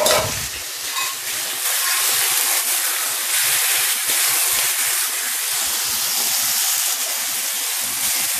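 Raw chicken pieces sizzling in hot sunflower oil in an iron kadai as they start to fry: a steady hiss, with a brief louder burst at the very start as the pieces go in.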